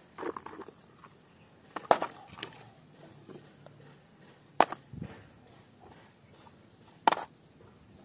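Muddy plastic toy vehicles clacking as they are picked up and set down on a wet tray: a few sharp knocks, the three loudest about two and a half seconds apart, with faint handling rustle between.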